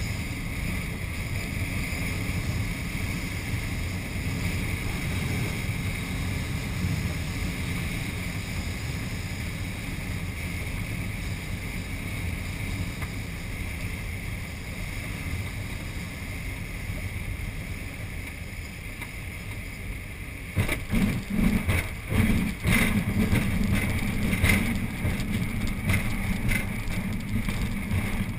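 Steady rush of airflow through the cockpit of a Schweizer 1-34 glider whose canopy is held partly open, on final approach. About 20 seconds in, the glider touches down, and irregular bumping and rattling from the ground roll over the rough field takes over.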